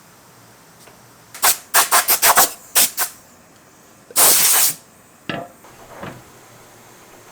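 Short bursts of hissing spray: about seven quick ones in a row, then one longer burst of about half a second, then two fainter short ones.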